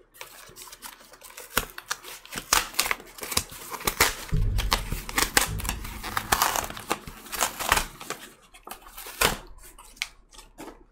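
Cardboard LP record mailer being torn open along its tear strip: a quick run of rips, scrapes and crinkles of cardboard. A low rumble of handling comes in about four seconds in.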